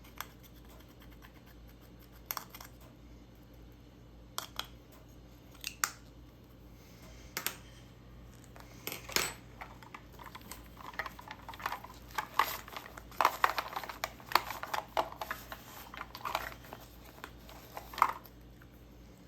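Glittery slime being handled: a few scattered sticky clicks at first, then, about halfway through, a dense run of crackling clicks and pops that goes on for several seconds.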